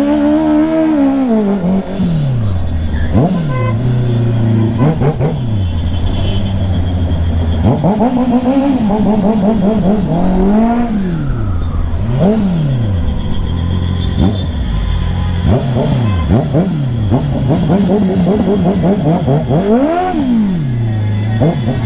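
Sport motorcycle engine revved again and again in short throttle blips, the revs climbing and falling back about ten times over a steady low running note as it rolls through slow traffic.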